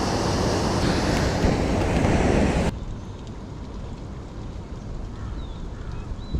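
Loud steady rushing outdoor noise that cuts off abruptly about two and a half seconds in, leaving a much quieter background with a few faint, short, high chirps.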